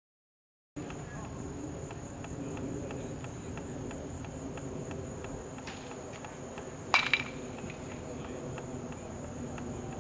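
Steady high-pitched outdoor insect trilling that starts just under a second in, with one sharp, ringing crack about seven seconds in.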